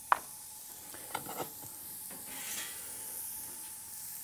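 Steak sizzling on a small pan preheated to 750 degrees, a steady faint hiss. A sharp clack of metal tongs set down on the counter comes just after the start, and a few light clicks follow about a second later.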